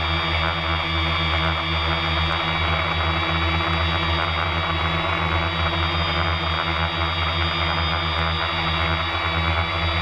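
Motors and propellers of an FPV multirotor drone, heard from its onboard camera, running in steady flight: a constant low hum with a thin high whine above it and a rough flutter from the propellers.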